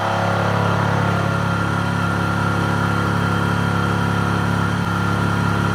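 Mini mill driven by a 900-watt brushless servo motor running steadily while a 3-inch fly cutter takes a 20-thousandths surfacing pass across 6061 aluminum, with a steady hum.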